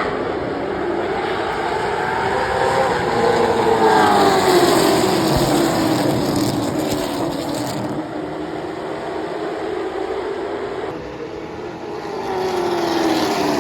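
Late model stock cars' V8 engines racing on the short track, pitch sweeping up and down as the pack goes by. It is loudest a few seconds in and swells again near the end.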